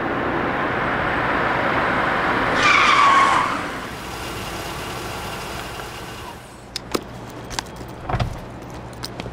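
A car drives up and brakes to a stop, its tyres giving a short falling squeal about three seconds in. After that come a few light clicks and knocks.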